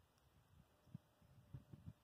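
Near silence, with a few faint, short low thumps.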